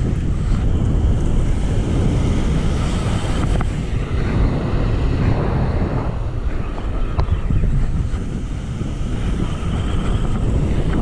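Strong wind buffeting the microphone in a loud, uneven low rumble, over waves breaking on the beach.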